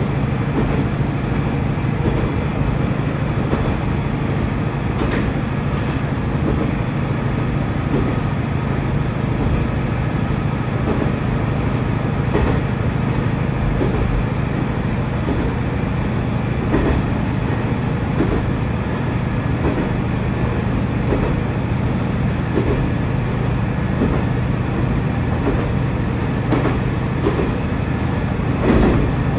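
Tosa Kuroshio Railway 8000-series diesel railcar running along the line with a steady low engine drone. Its wheels click over rail joints in a recurring rhythm, with a few sharper clacks along the way.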